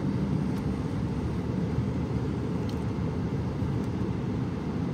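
Steady low rumbling background noise, even throughout, with no distinct events.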